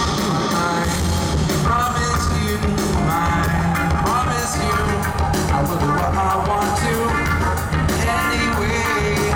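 Rock band playing live, with a male lead singer singing the melody over the band at full volume.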